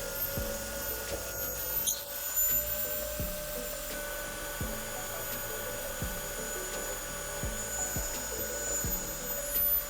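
Background music with a slow, even beat, a low thump about every second and a half, over a steady hum with a rubbing, workshop-like noise.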